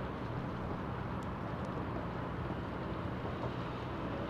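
A motorboat engine running steadily as a low hum, under a haze of water and wind noise.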